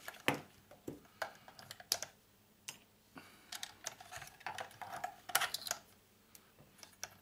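Small metal tools and parts clicking and clinking against a Bakelite case during disassembly, in irregular sharp taps, some with a brief metallic ring.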